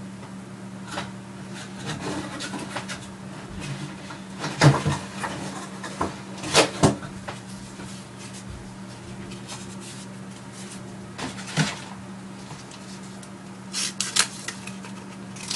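Scattered knocks and clatter of someone rummaging about, like cupboards and drawers being opened and shut, over a steady low hum; the sharpest knocks come about five and seven seconds in, with a run of them near the end.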